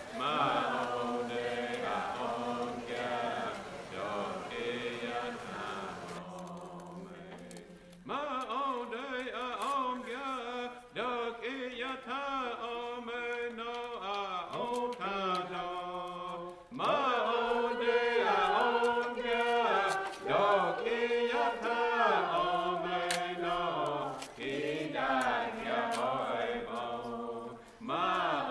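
A group of voices chanting a song together, a steady sung melody with two short breaks.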